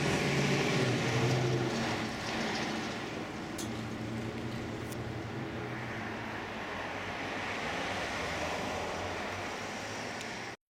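Steady low rumble of road traffic and vehicle engines, a little louder in the first couple of seconds, cutting off abruptly near the end.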